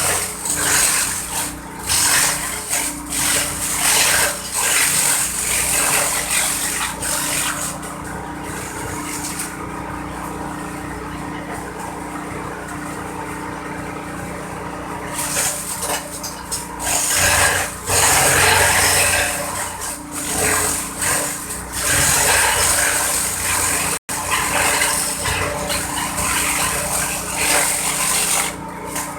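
Homemade corn-stalk chopping machine running, its motor keeping up a steady hum, with repeated loud bursts of shredding as stalks are fed through the blades. The shredding stops for several seconds about a third of the way in, leaving only the machine running.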